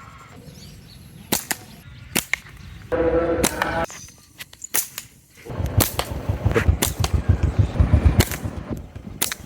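Slingshot being shot several times, each release a sharp snap of the rubber band, spaced about a second apart. A low, fast rumble comes in about halfway through.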